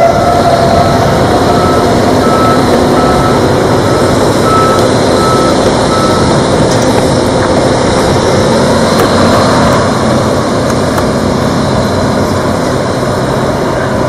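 The last tone of an EOWS 612 electronic warning siren fades out over the first few seconds after its test. Steady broad road-traffic noise runs underneath, with a vehicle's reversing beeper sounding about once every three-quarters of a second from about two to seven seconds in.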